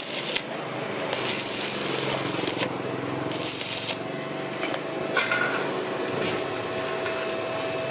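Stick-welding arc from a Ptools ZX7-270 mini inverter welder crackling and hissing as the electrode is dragged along a bead, coming in spells and dying down about four seconds in. A faint steady whine runs underneath.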